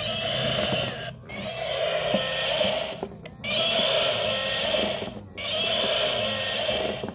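Battery-operated walking gorilla toy playing its built-in recorded animal sound through a small, tinny speaker, in stretches of about two seconds with short breaks between, four times over. Faint ticking from its walking gear mechanism runs underneath.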